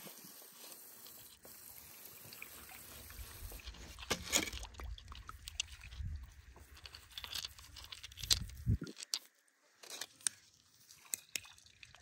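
Rough quartz crystals and gravel clicking and crunching against one another as they are shifted in a gloved hand over a perforated metal sieve, in scattered sharp clicks. A low rumble comes in about three seconds in and stops suddenly near nine seconds.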